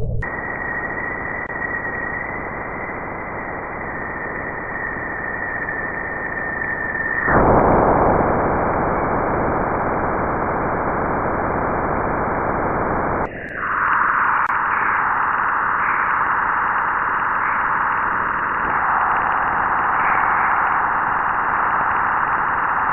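Steady static-like noise with a high steady tone over it for about the first seven seconds. Then plain noise, and about thirteen seconds in the noise turns brighter and narrower for the rest.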